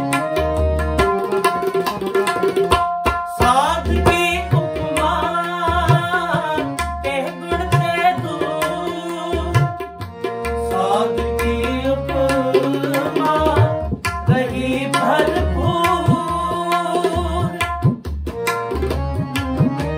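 Harmoniums and tabla playing Sikh kirtan music. Held reed chords and melody run over a steady tabla rhythm with frequent deep bayan strokes.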